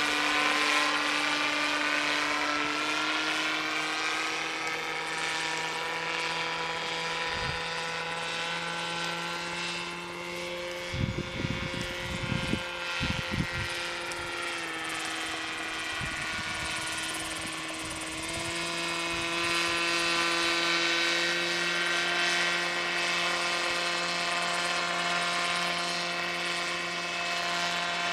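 Home-built radio-controlled autogyro in flight: its motor and pusher propeller drone steadily, the pitch stepping and gliding up and down with throttle and as it flies past. A few low thumps come in a cluster about halfway through.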